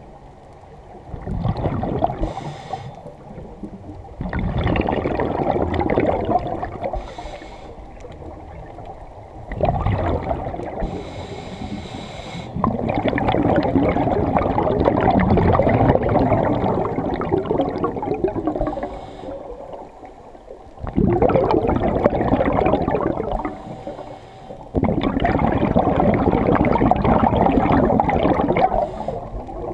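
Scuba regulator breathing underwater: long bubbling exhalations lasting several seconds, separated by short hissing inhalations, repeating about every five to seven seconds.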